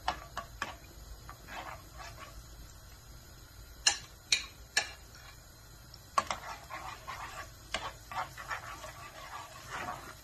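A utensil stirring minced garlic in oil in a metal frying pan, tapping and scraping against the pan in scattered clusters of sharp clicks.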